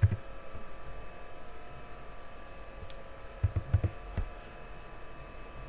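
A few soft computer-keyboard keystrokes, clustered about three and a half to four seconds in, over a faint steady electrical hum.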